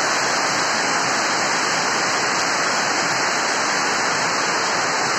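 Heavy rain pouring down, a loud, steady, even hiss of drops on the ground and roofs.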